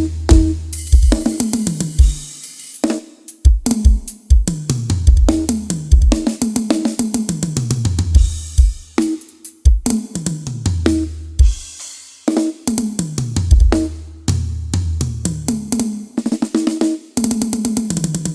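Drum kit played during a sound check: bass drum and snare with cymbal crashes, and repeated tom fills that run down from the high toms to the floor tom, in short phrases with brief stops between them.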